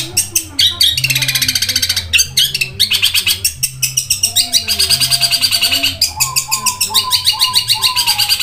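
Long-tailed shrike (cendet) singing a fast rolling run of high, rapidly repeated chirps, with a series of lower notes joining in the second half.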